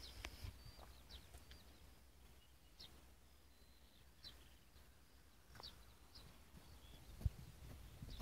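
Faint, scattered short high calls of European bee-eaters over a low rumble, with one low thump about seven seconds in.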